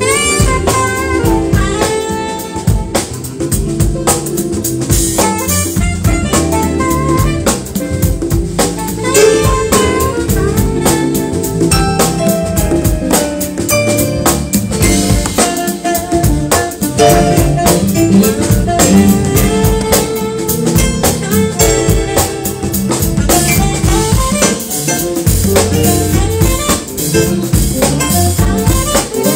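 Live jazz band playing: a drum kit under saxophone, electric guitar and bass.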